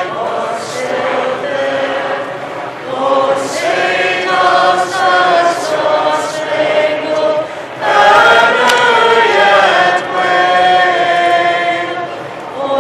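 A national anthem being sung, led by a female singer, in long held notes with short breaks between phrases.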